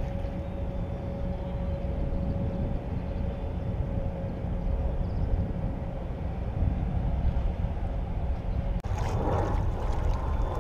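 Steady low rumble of open-water ambience around a kayak, with a faint steady hum for the first few seconds. About nine seconds in there is a sharp click, and the noise turns brighter and busier after it.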